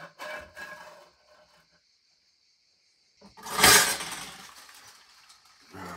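A few light knocks and scrapes, then about three and a half seconds in a sudden loud crash and clatter that dies away over about a second.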